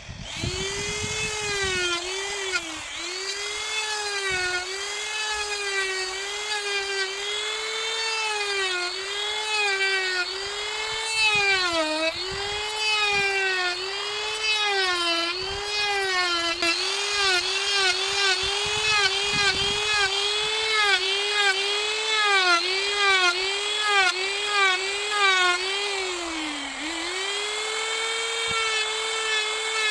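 A handheld power carving tool cutting wood: a steady high whine whose pitch sags each time it bites into the wood and climbs back as it eases off, about once a second. There is a longer, deeper dip near the end.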